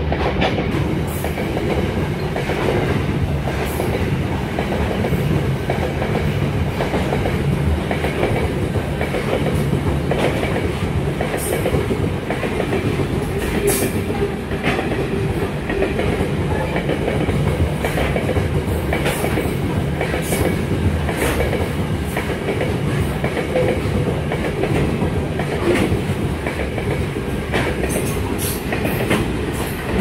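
Freight train of SSR hopper wagons passing close by, a steady rumble of wheels on rails. Brief high-pitched wheel squeaks come now and then.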